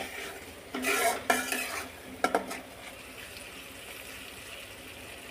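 A spatula scraping and stirring a thick spice masala in a metal karahi, a few strokes in the first half, over a steady sizzle of the paste frying in oil. The masala is being fried down (kosha/bhuna) until the oil separates.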